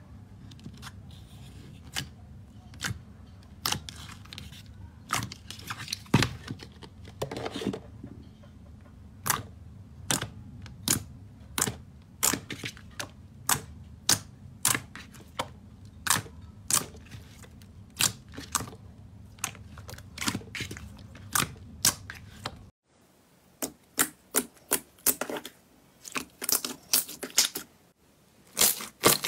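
Slime being squeezed and poked, giving a string of sharp pops and clicks, roughly one or two a second. Near the end the low hum underneath drops away and the pops come faster.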